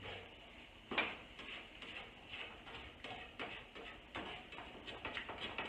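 Spatula scraping and tapping against a frying pan while eggs are scrambled: irregular scrapes and clicks, with one louder knock about a second in, over a faint steady hiss from the cooking eggs.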